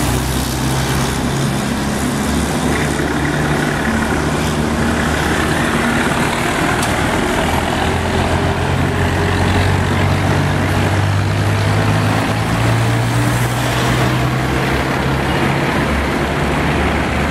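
Vintage farm tractor engines running as a line of tractors drives slowly past, with cars among them. There is a steady, low engine note throughout.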